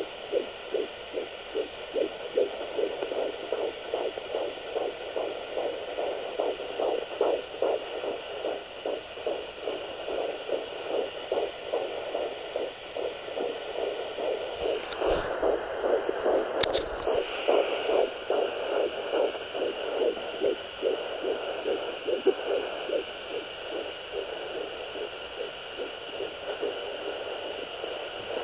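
Fetal heartbeat through a handheld fetal Doppler's speaker: a fast, regular beat of pulses over a faint steady electronic hum, with a brief crackle about halfway through.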